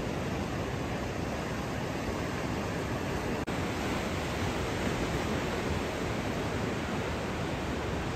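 Sea waves breaking and washing up a small sandy cove: a steady rushing surf, with a momentary break about three and a half seconds in.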